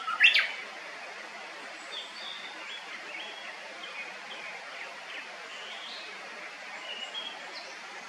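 Japanese bush warbler singing: a loud, quick run of sharp whistled notes in the first half-second ends its song, the 'hokekyo' flourish that follows the long held whistle. Faint, scattered high chirps follow.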